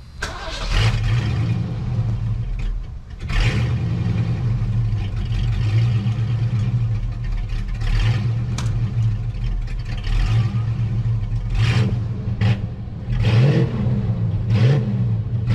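1985 Mustang 5.0 V8 running at a rough idle, its speed rising and falling every couple of seconds in a surge. A few sharp clicks sound over it. The rough idle and surge come from a carbon-clogged EGR valve.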